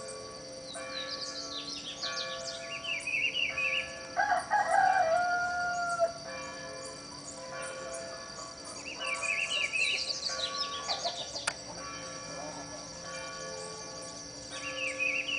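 A rooster crowing once, about four seconds in, ending on a long held falling note, while small birds chirp in short repeated bursts every few seconds over a steady high ringing tone.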